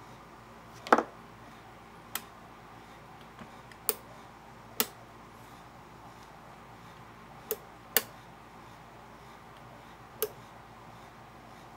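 Sharp, irregular metal clicks and knocks, about seven of them and the loudest near one second in, from the mechanism of a vintage Kenmore sewing machine being worked by hand as its gummed-up, stuck part is freed.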